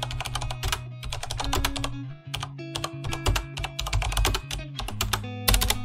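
Computer-keyboard typing sound effect, rapid irregular clicks, over background music with steady low notes.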